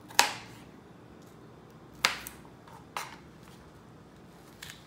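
Small kitchen knife slicing an onion on a plastic cutting board: the blade knocks sharply on the board at irregular intervals, three clear knocks and two fainter ones.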